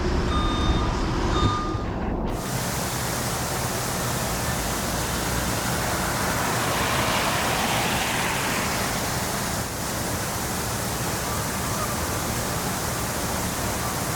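Heavy rain pouring down, a dense, even hiss that sets in abruptly about two seconds in and holds steady.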